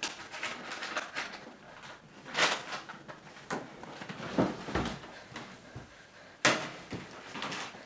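Irregular knocks, bumps and rustles of people moving about and handling things at close range, the loudest a sharp knock about six and a half seconds in.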